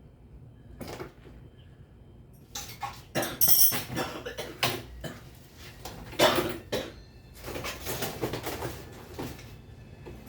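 Hard objects clattering, knocking and scraping against one another in quick irregular strokes, starting about two seconds in and dying away near the end.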